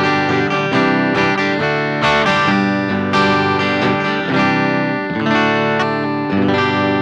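Electric guitar played through the north coil of its humbucker alone (the 5-way switch's coil-split position): chords and notes struck in a steady rhythm, each left to ring.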